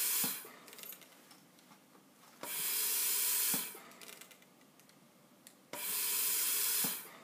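Bird Mark 8 pneumatic respirator cycling as a ventilator into a test lung: a loud rush of gas hisses for about a second on each inspiration, starting and ending with a click, roughly every three seconds. It is set for 20 breaths a minute with about one-second inspirations. One breath cuts off just after the start, then two full breaths follow.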